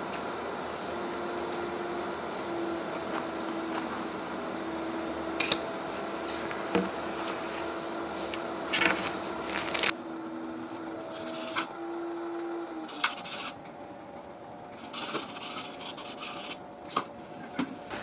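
Steady hum of laundromat washers and dryers running, with scattered clicks and taps of typing on a laptop keyboard. The background changes abruptly about ten seconds in and drops quieter a few seconds later.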